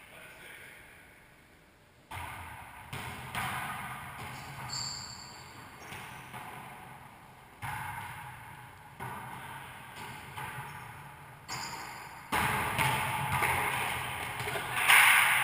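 Rubber wallyball being struck by hands and rebounding off the walls and wooden floor of an enclosed racquetball court: a string of sharp slaps, each followed by a booming echo, about one a second, with the loudest hit near the end. Two short high squeaks of sneakers on the hardwood floor are heard along the way.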